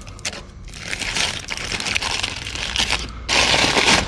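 Masking tape being pulled off and wadded up, a crackly crinkling rustle that gets louder about three seconds in.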